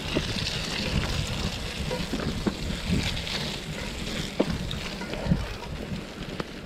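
Wind rushing over the microphone with a low rumble and scattered knocks and rattles, as of riding over a rough trail.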